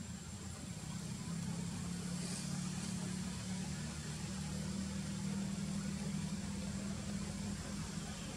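A steady low engine hum, as of a motor vehicle idling, getting a little louder about a second in, with a faint steady high-pitched tone above it.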